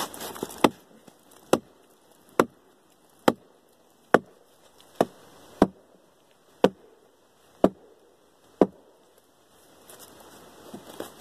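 Hatchet chopping into the bark of a felled log to free it for peeling. About ten sharp strokes come roughly once a second and stop about nine seconds in.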